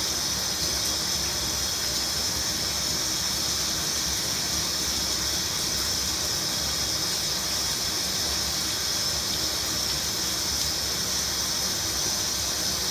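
Shower running: a steady hiss of water spray, even throughout.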